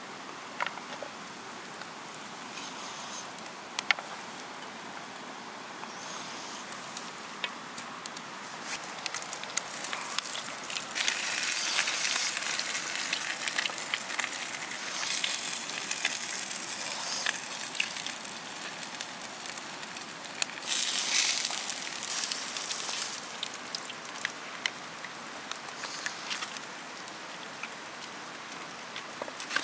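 Lamb sizzling in the cauldron over a crackling wood fire, a steady hiss that swells louder several times, with a few sharp clicks.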